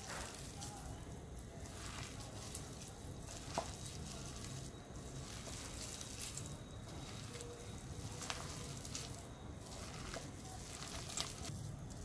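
Hand squeezing and tossing sliced onions coated in gram flour and rice flour in a glass bowl: soft wet squishing and rustling that swells with each stroke, about once a second, with a few sharp clicks.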